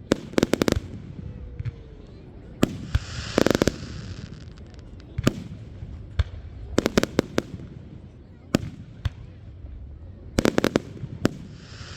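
Fireworks bursting in sharp bangs, some single and some in quick clusters of several. A spell of hiss comes with the loudest cluster about three and a half seconds in, and another comes near the end.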